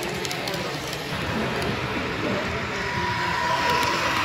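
HO scale model freight train rolling past on the layout, its wheels giving a steady crackling rumble on the track. A steady high tone joins about three seconds in.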